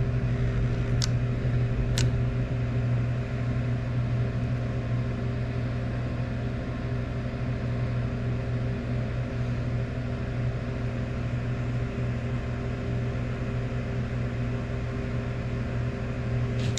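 Transformer soldering gun humming steadily with a low electrical buzz while its trigger is held, heating the tip to melt solder onto a speaker's wire terminal. Two sharp clicks about one and two seconds in.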